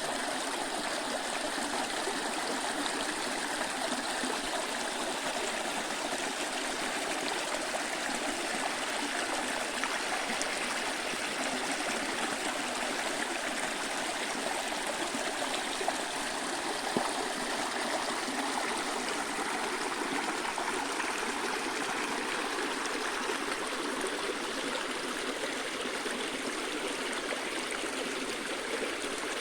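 Stream water rushing over rapids: a steady, even rush and babble without pause.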